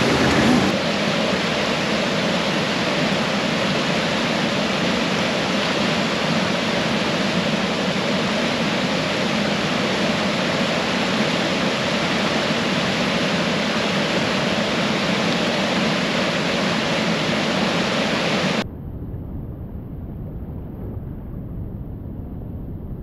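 Steady rush of fast-flowing creek whitewater. About three-quarters of the way through it cuts off abruptly to a quieter, low rumble.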